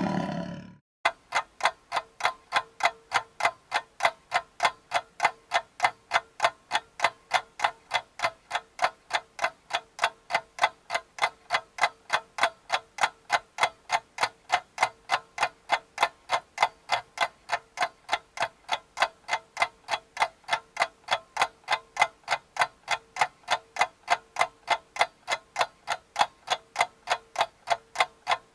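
Clock-ticking sound effect: even ticks, about three a second, starting about a second in and running steadily on.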